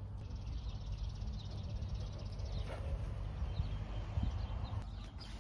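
Outdoor ambience: a steady low wind rumble on the microphone, with faint high bird chirps.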